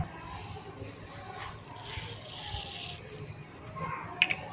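Faint background voices of people and children, with a soft hiss about two seconds in as whole spice seeds are shaken out of a plastic tub into a pot of broth.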